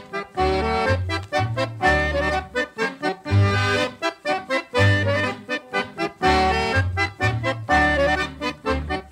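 Accordion music: a lively tune of short, choppy notes over a regular bass beat.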